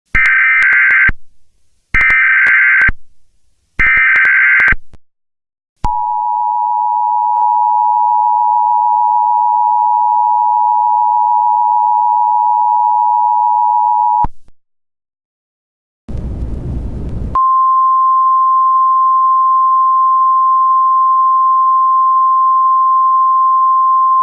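Emergency Alert System tones: three one-second bursts of buzzy SAME header data, then the two-tone EAS attention signal held steady for about eight seconds. After a short rush of noise, a steady single-pitch alert tone of the NOAA Weather Radio kind runs to the end.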